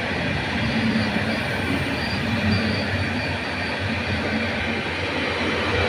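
Electric multiple unit moving slowly along the platform: steady running rumble and motor hum, with a faint high wheel squeal in the middle.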